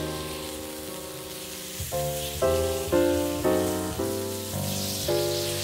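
Background music of struck, piano-like chords changing every half second or so, with meat sizzling faintly on a hot griddle plate underneath.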